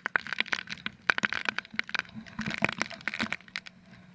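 Dense, irregular sharp cracks and knocks on an action camera's waterproof housing, from spray and jolts as a banana boat rides over a jet ski's wake. A low steady hum runs underneath.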